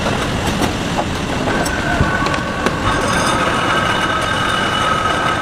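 Matchstick-making machinery running steadily with a dense mechanical rumble and a few clicks. Steady high whining tones come in about a second and a half in and grow stronger near the middle.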